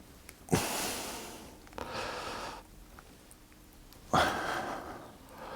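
A person breathing out heavily three times, each breath starting suddenly and fading over about a second, the last about four seconds in.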